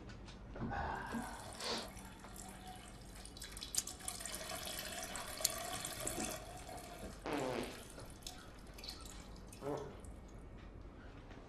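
Water running from a tap into a bathroom sink for a few seconds in the middle, with a few brief sounds of a man's voice before and after.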